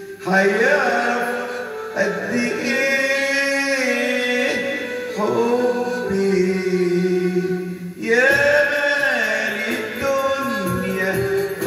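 Electronic keyboard playing an Egyptian melody, with a man singing along into a microphone in long, sliding, held notes, phrase by phrase.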